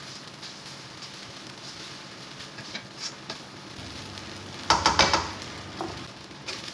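Fried rice sizzling in a wok while a plastic spatula stirs and tosses it, with light scrapes and taps against the pan. About five seconds in comes a brief, louder clatter of utensil knocks, the loudest sound here, followed by a couple of softer knocks.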